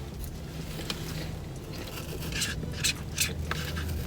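Eating and food handling: scattered short scrapes and clicks, more of them in the second half, over a steady low hum.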